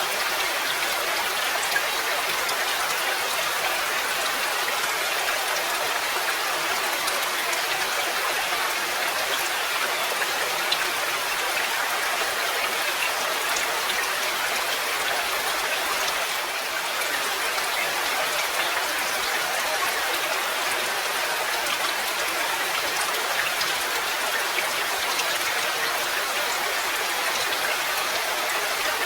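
Steady rain falling, an even hiss with scattered single drops ticking through it.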